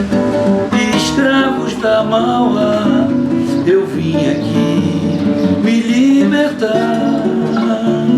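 Samba played on strummed acoustic guitar, an instrumental passage with no singing, with a few sharp percussive strokes over the chords.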